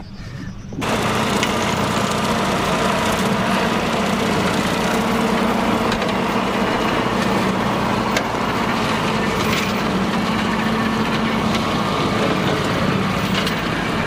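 LS MT240E compact tractor's diesel engine running steadily under load, with its 5-foot rotary cutter (brush hog) spinning through tall grass. The sound cuts in suddenly about a second in, over a quieter low engine rumble.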